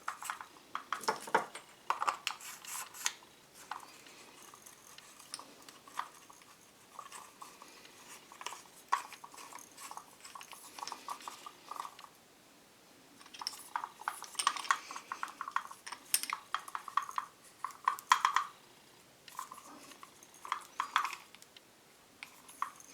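Irregular clicking, clinking and scraping of a metal hose fitting and a plastic garden nozzle being handled and worked together to seat the fitting. The sounds come in clusters with short pauses between them.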